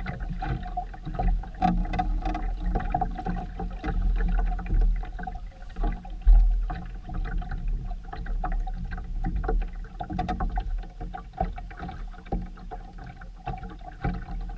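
Sailboat under way: water noise around the hull and uneven gusts of wind on the microphone, over a steady hum.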